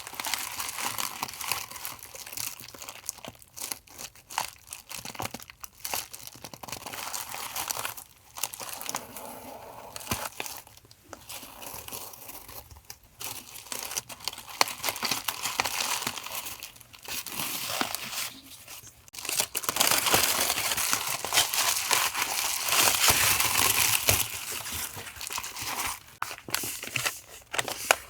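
Paper and plastic packaging being handled and unwrapped: crinkling and rustling in irregular bursts with short pauses, loudest and most continuous about two-thirds of the way through.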